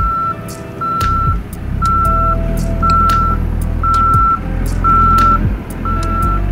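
Caterpillar 420F backhoe loader's reversing alarm beeping about once a second, each beep a single steady tone, over the backhoe's diesel engine running.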